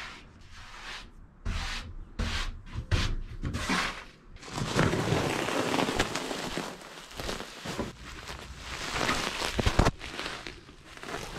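Rummaging and handling sounds: irregular knocks and clunks, then a few seconds of steady crinkly rustling of plastic sheeting, then more knocks.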